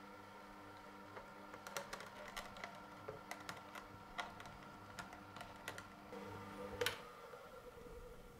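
Horizontal slow auger juicer running with a low, steady motor hum, with small irregular clicks and crackles as it presses blended rose hip pulp, the finely ground seeds and skins. One sharper knock about seven seconds in.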